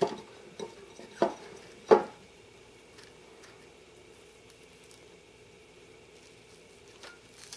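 A few light taps and knocks in the first two seconds as strawberries and a strawberry huller are handled on a wooden tabletop. After that only faint room tone with a low steady hum.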